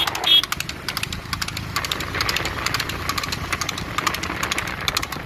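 Water buffalo cart racing on a paved road: a rapid, uneven clatter of hooves and the wooden cart over a low steady rumble. A brief high call rings out near the start.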